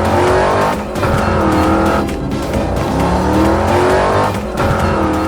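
Car engines revving hard, each rev climbing in pitch over about a second before starting again, like racing cars speeding off in a chase.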